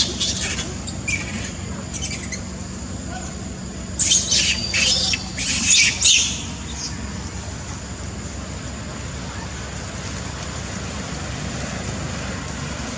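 Macaque giving a run of short, shrill screeches about four seconds in, over a steady low background hum.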